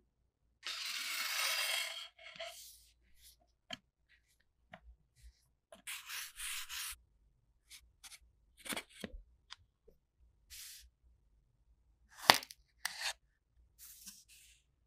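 Kinetic sand being handled and pressed in a plastic mould: separate bursts of gritty scraping and rubbing, with a few sharp knocks. The loudest knock comes about twelve seconds in.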